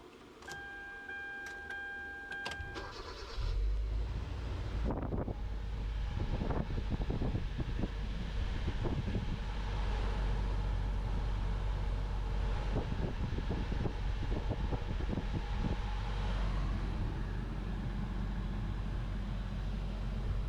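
A car's warning chime pulses for a couple of seconds. The engine then starts about three and a half seconds in and idles steadily, with scattered light clicks over the low running sound.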